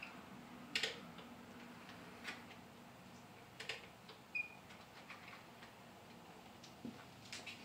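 Light, irregularly spaced clicks and ticks from an HO-scale model railroad in operation, with a brief faint squeak about four and a half seconds in.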